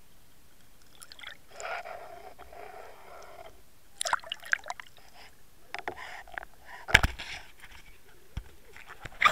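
Water splashing and dripping as an underwater camera is lifted out of the lake beside a kayak, with a rush of water early on and scattered knocks and clicks of it being handled, the loudest knock about seven seconds in.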